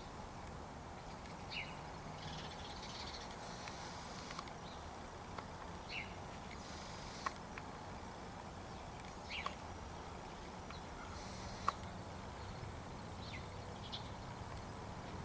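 Short bird calls a few seconds apart over steady outdoor background noise, with two sharp clicks about seven and twelve seconds in.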